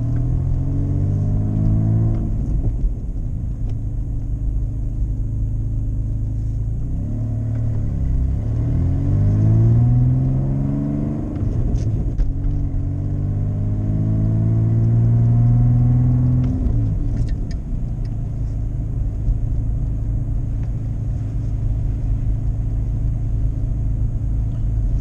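1986 Pontiac Fiero GT's 2.8-litre V6, heard from inside the cabin, pulling up through the gears: its pitch rises in three pulls with a drop at each gear change. About two-thirds in it falls back to a steady low cruise.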